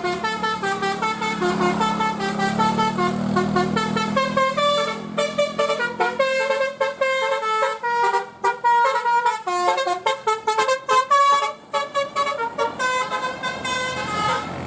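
A tour bus's telolet horn, a multi-tone musical horn, playing a quick melody of short stepping notes, several to the second, with a low hum underneath in the first few seconds. The melody cuts off near the end.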